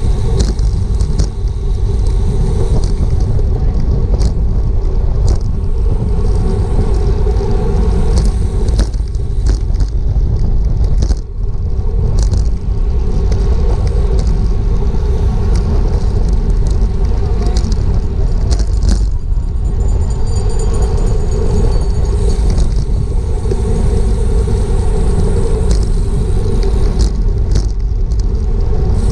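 Wind buffeting a bicycle-mounted GoPro's microphone at racing speed, over a steady rumble of road-bike tyres on pavement, with scattered short clicks.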